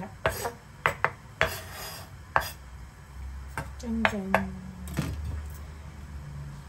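Chef's knife knocking and scraping on a bamboo cutting board as minced garlic is scraped together into a pile: a series of irregular sharp taps with a short scrape about a second and a half in.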